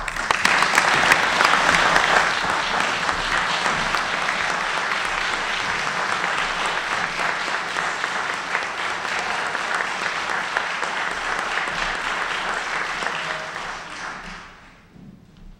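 A large audience applauding, loudest in the first couple of seconds, then steady, dying away about a second before the end.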